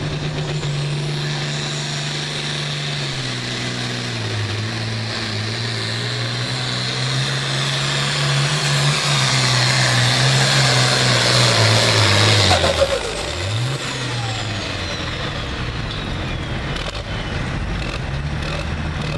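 Turbocharged International 1066 pulling tractor's engine under full load, dragging a weight-transfer sled; it builds in loudness until about two-thirds of the way through. Then it falls away suddenly, the engine note dipping steeply and recovering, and runs lower and steady to the end.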